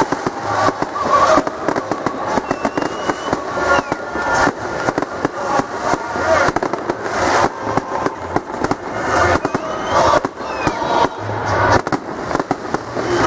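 Aerial fireworks bursting: a rapid, continuous run of bangs and crackles from shells exploding overhead.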